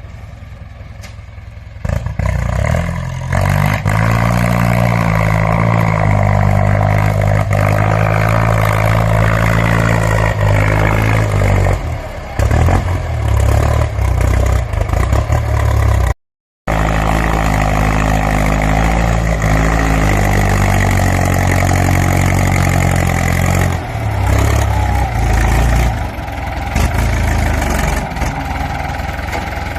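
Ford 6640 tractor's diesel engine running loud, its pitch rising and falling as it is revved. It comes in abruptly about two seconds in and drops out for a split second about halfway through.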